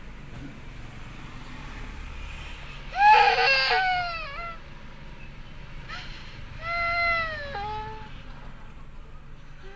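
A cat giving two drawn-out, wailing meows that fall in pitch at the end, the first about three seconds in and louder, the second about seven seconds in.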